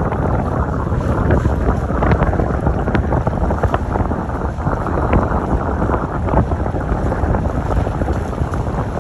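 Wind blowing hard across the microphone: a steady, loud low rumble, with a few faint ticks in it.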